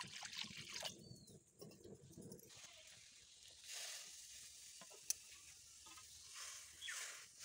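Faint handling sounds at an iron kadai: water poured into it trails off about a second in, then soft patting and rustling as tied taro-leaf rolls are laid into the water, with one sharp click about five seconds in.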